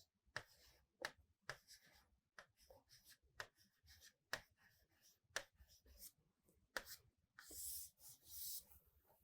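Faint taps and short scratching strokes of writing over near silence: about seven light ticks spread through, then two brief scratchy strokes near the end.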